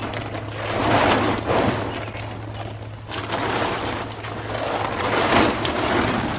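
Blue plastic tarp rustling and crinkling in several swells as it is pulled and dragged off a stack of lumber, over a steady low hum.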